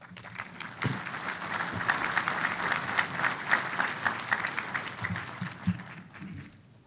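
Audience applauding. It starts just under a second in and dies away near the end.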